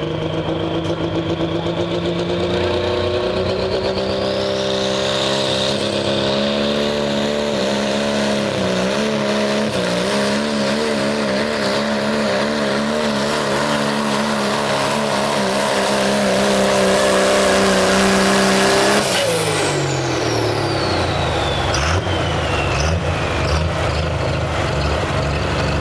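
Dodge Ram's turbocharged Cummins inline-six diesel pulling a weight sled at full throttle: it revs up with a rising turbo whistle over the first few seconds, then holds high revs with a wavering pitch. About three-quarters of the way through the revs drop off suddenly as the throttle comes off, and the turbo whine winds down.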